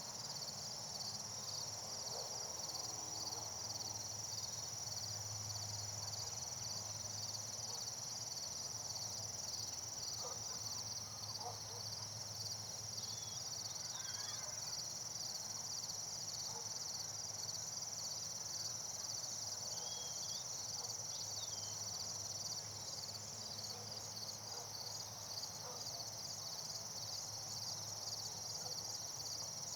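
Steady chorus of crickets or similar insects: a continuous high trill with a fast, even pulse. A few faint short chirps come through near the middle.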